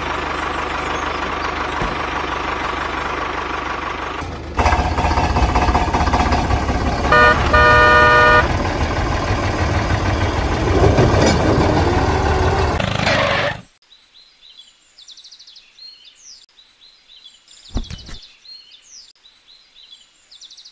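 A tractor engine running steadily, growing louder about four seconds in, with a horn giving a short toot and then a longer honk midway. The engine stops suddenly about two-thirds through, leaving faint bird chirps and a single click.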